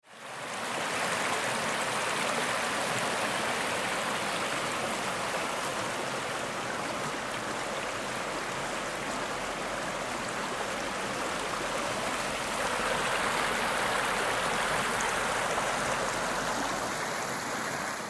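A rocky brook rushing and splashing over and between boulders: a steady roar of running water that fades in at the start and grows a little louder about two-thirds of the way through.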